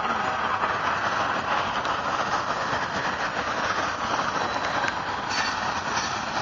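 Hooded coil cars of a Norfolk Southern freight train rolling past. The wheels on the rails make a steady rolling rumble with a few faint clicks.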